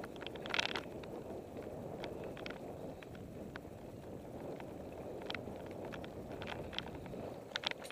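Salsa El Mariachi Ti mountain bike riding along a dirt singletrack: a steady rumble of tyres on dirt, with scattered clicks and rattles from the bike. The clicks are loudest about half a second in and again near the end.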